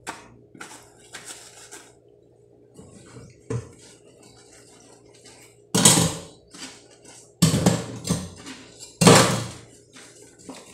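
Dishes and utensils being washed by hand in a stainless steel sink: light scattered clicks and scrapes, then three loud ringing clanks against the steel in the second half, over a low steady hum.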